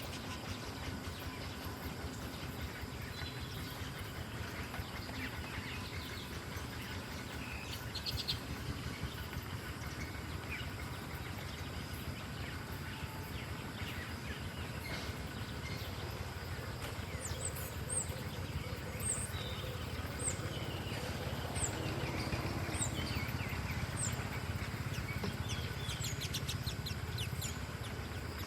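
Small birds chirping over a steady low background rumble, with short high chirps repeating about once a second through the second half.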